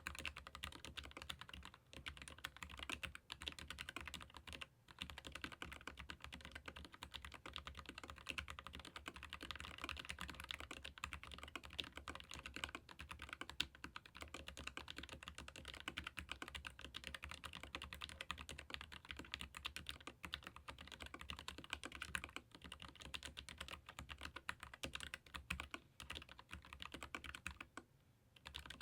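Continuous fast typing on a Keychron K15 Pro Max low-profile mechanical keyboard with Gateron low-profile red linear switches: a dense stream of key clacks, broken by short pauses about two and five seconds in and again near the end.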